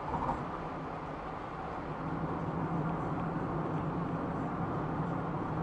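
Steady road and engine noise inside a moving car, heard through a dashcam, with a steady low hum and no sudden events.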